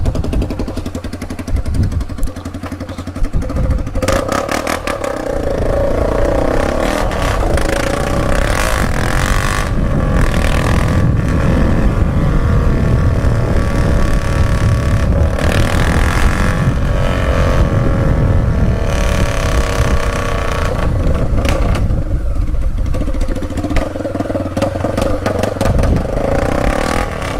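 Motorcycle engine running loud on a bare exhaust pipe with no muffler, its engine speed rising and falling, and getting louder about five seconds in.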